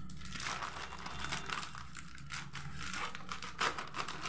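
Small scissors snipping through a foil snack packet, a run of short crackly snips mixed with the rustle of the wrapper being held and turned.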